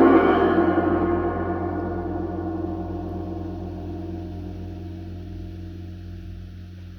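A heavy 1920s 22-inch K. Zildjian Constantinople orchestral cymbal struck once with a mallet toward its edge, then ringing out as a dense wash of many tones that fades slowly and is still sounding at the end.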